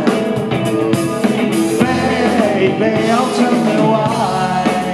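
Live rock band playing: electric guitar, bass guitar and drum kit, with the lead singer's voice over them.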